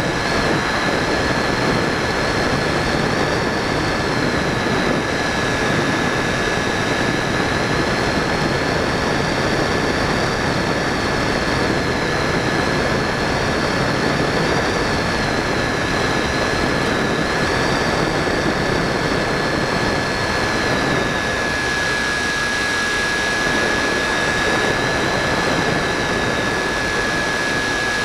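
Onboard sound of an Easystar 2 electric RC motor glider in flight: a steady rush of propeller and airflow noise with a thin high motor whine that wavers slightly in pitch. The whine fades about three-quarters of the way through, returns briefly, then fades again.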